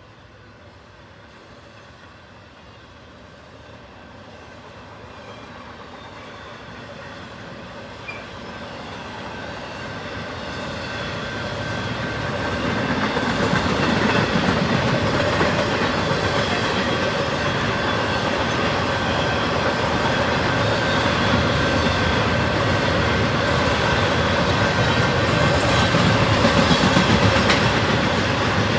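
A train approaching, growing steadily louder for about ten seconds, then passing close by with a steady rumble and wheels clacking over the rail joints.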